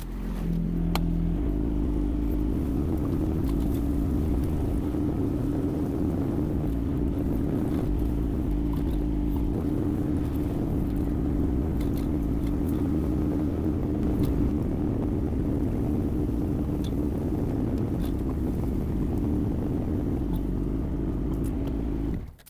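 Yanmar diesel engine of a Kymron XH20D mini excavator running steadily with a constant hum, then stopping abruptly near the end.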